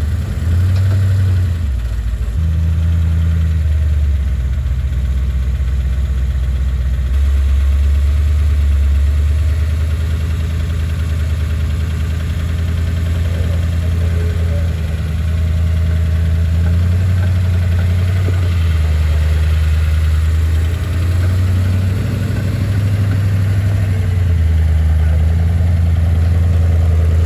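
Engine of a built first-generation Ford Bronco rock crawler running at low revs as it crawls up a tall rock ledge, a loud deep note that steps up and down in pitch as the throttle changes.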